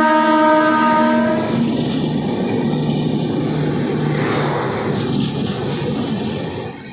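A WAP-7 electric locomotive's horn sounds a multi-tone chord that cuts off about a second and a half in. The steady rumble of the passing train follows and drops away near the end.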